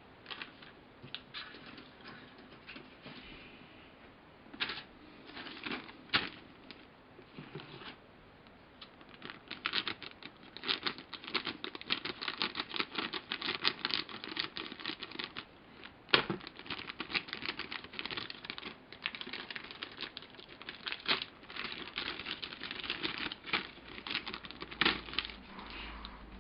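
Plastic model-kit sprues being handled in their plastic bags: a dense run of crackling and small clicks, with a few sharper clicks about six and sixteen seconds in.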